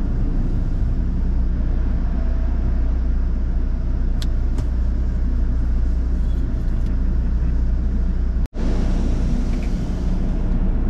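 Steady low rumble inside a car's cabin with the engine running, cut off for an instant by a sharp dropout about eight and a half seconds in.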